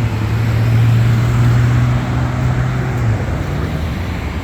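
Road traffic noise, with a steady low engine drone from a nearby vehicle that drops away about three seconds in.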